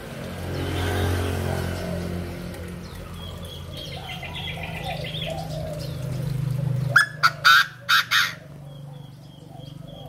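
Chinese francolin (đa đa) giving its loud crowing call: a run of about five harsh notes in just over a second, about seven seconds in.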